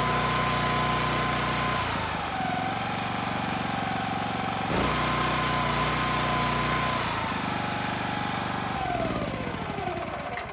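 Honda GX390 13 hp single-cylinder petrol engine driving a pressure-washer pump. It slows when throttled back, speeds up again about halfway through, then slows once more. Near the end it is switched off and runs down to a stop.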